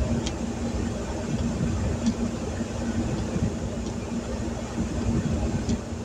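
Steady rumble and hum inside a truck cab with the engine idling and the heater fan blowing, mixed with rain pouring on the roof and windshield and occasional light ticks.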